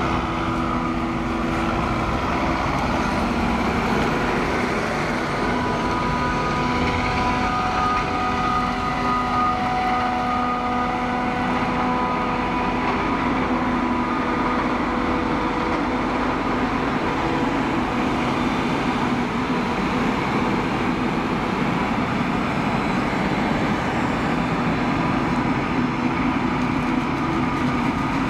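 Claas Jaguar 870 forage harvester chopping maize, with a Fendt tractor and silage trailer running alongside. Heavy diesel machinery runs steadily, and several steady whining tones sound above the engine noise, clearest from about five to fourteen seconds in.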